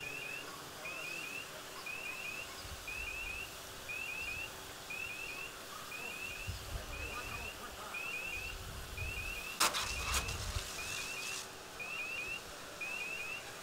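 An electronic alarm sounds over and over: three short rising beeps about once a second. Under it is the steady hiss of a fire-hose jet spraying water. Two sharp knocks come close together about ten seconds in.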